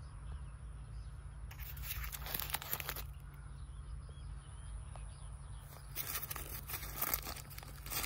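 A paper fruit-protection bag around a picked avocado is crinkled and torn open by hand. The rustling comes in two spells, about a second and a half in and again from about six seconds.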